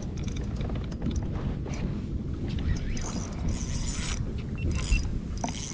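Wind buffeting the microphone and water sloshing around a kayak at sea, with patches of high hiss that come and go and scattered small clicks and knocks.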